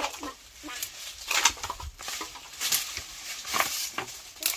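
Dry leafy branches rustling and crackling as they are gathered and handled, in short bursts about once a second.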